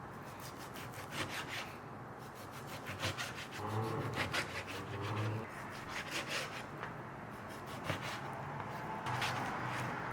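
Kitchen utensils scraping, with many small clicks and taps, during food preparation. A low hum comes in briefly twice.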